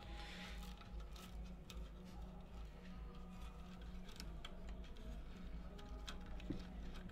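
Faint handling noise: a hand moving bundled wires and plastic connectors on a light fixture's circuit board, giving scattered light clicks and ticks over a steady low hum.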